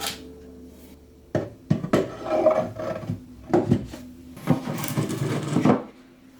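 Hand work on a wooden box: irregular scraping and rubbing with a few knocks, starting about a second and a half in and stopping shortly before the end.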